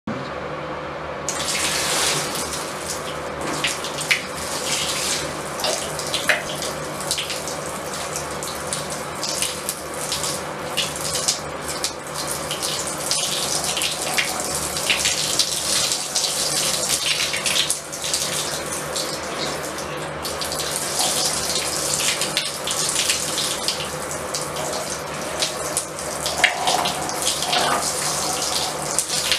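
Water running from a tap or shower into a bathtub, starting about a second in, with uneven splashing.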